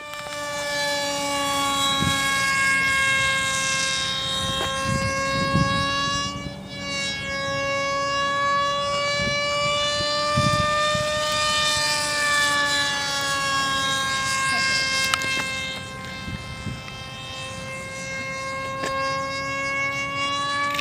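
Scratch-built RC delta wing's motor and propeller whining steadily in flight, the pitch wavering slightly up and down as it flies and turns. It grows fainter briefly about six seconds in and again for a while past the middle, with a few soft low thumps underneath.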